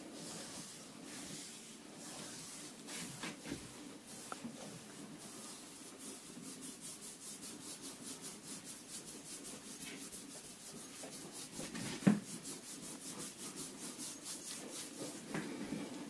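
Hands rubbing briskly over the bare skin of a back in a massage, settling into fast even strokes about six seconds in, roughly three to four a second. One sharp knock stands out about twelve seconds in.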